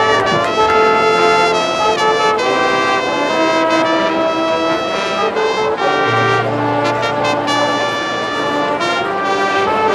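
Marching band brass section playing held chords that change every second or so, with a low bass note coming in about six seconds in.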